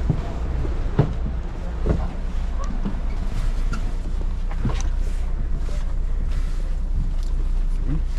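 Low steady rumble of a coach bus idling, heard from inside the cabin, with a few irregular knocks and rustles as people with backpacks board and walk down the aisle.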